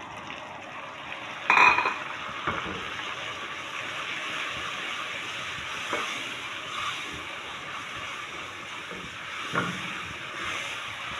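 Hot oil sizzling as puréed tomato goes into fried onions and ginger-garlic, with a loud burst of sizzling about a second and a half in. It then fries steadily while a wooden spoon stirs it round a metal pan, with a few light knocks of the spoon.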